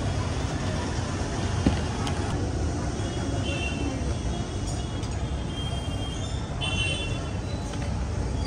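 Steady low rumble of street traffic, with a sharp click a little under two seconds in.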